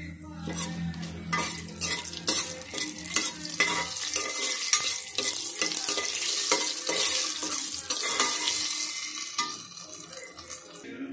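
Whole spices sizzling in hot oil in a stainless steel pot while they are stirred, with a utensil clicking and scraping against the metal; the sizzle grows louder about four seconds in.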